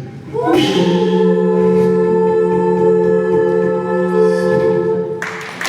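An a cappella vocal group holds a final sustained chord of several voices, which cuts off about five seconds in as audience applause breaks out near the end.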